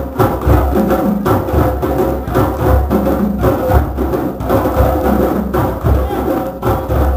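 Drum circle of hand drums playing a steady interlocking rhythm together, deep bass strokes under sharper, clicking accents.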